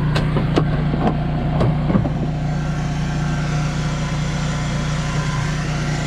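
An engine idling steadily with a low, even hum. About four light clicks in the first two seconds come from cab trim and hardware being handled.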